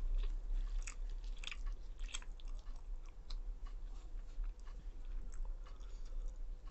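Close-up chewing of roti and Maggi noodles: irregular soft clicks and crackles, thickest about one to two seconds in, over a steady low hum.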